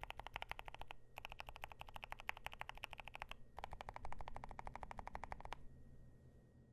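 Fast typing on a KBD8X MKIII mechanical keyboard with Gateron Zero Degree silent switches on a polycarbonate plate: rapid, soft keystrokes in three runs with short pauses between them. The typing stops about a second before the end.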